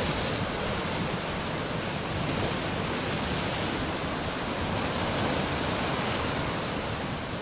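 Steady rushing noise with no distinct events, fading a little near the end.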